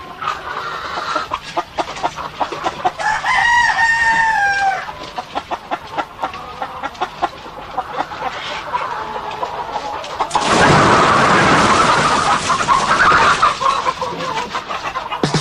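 Chickens clucking in short, repeated calls, with a rooster crowing once a few seconds in. In the second half a loud, rough noise lasts about three seconds.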